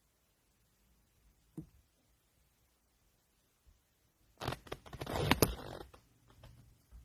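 A sleeping dog gives one loud, rasping snort about four seconds in, lasting a second and a half, after a faint short breath a little earlier.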